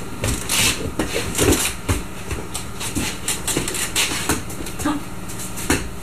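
Puppies playing with their toys: a run of small irregular knocks, clatters and rustles.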